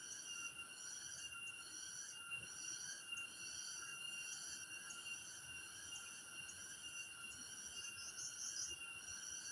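A chorus of insects trilling in several steady high pitches at once, with a higher, pulsing voice among them that grows louder near the end.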